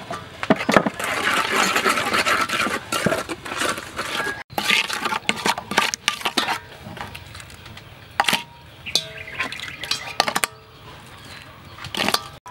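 Wooden spoon stirring a sauce in an aluminium bowl: scraping against the metal with uneven clicks and knocks.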